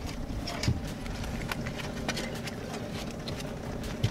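A boat's outboard motor idling steadily, with scattered clicks and two low thumps as a rainbow trout is unhooked from a trolling fly in a landing net on the deck.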